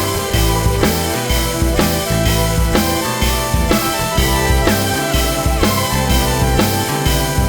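Background music: an instrumental track with a steady drum-kit beat, bass and sustained melodic notes.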